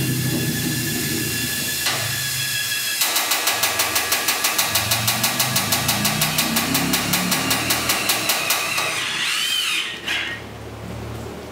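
Cordless power driver tightening a hose clamp on a steel exhaust side pipe. A steady motor whir for about three seconds, then about five rapid knocks a second for several seconds, ending with a short squeal and cutting off about ten seconds in.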